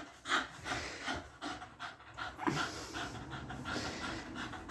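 A dog panting hard in quick, short breaths, about three a second, easing off about halfway through.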